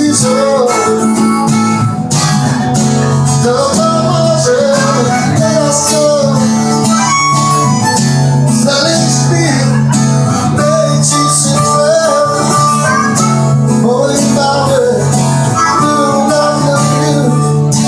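Two acoustic guitars strumming chords while a harmonica plays a bending melody line over them, in a live acoustic band performance.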